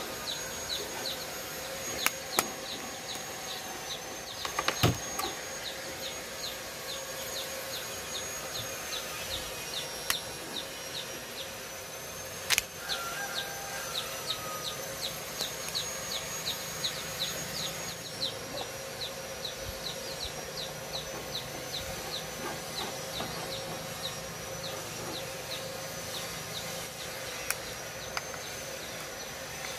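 A steady background of short high chirps, about two or three a second, with a steady high whine behind them. A few sharp clicks and taps come from hands handling a metal strip and a wire spool, the loudest about five seconds in.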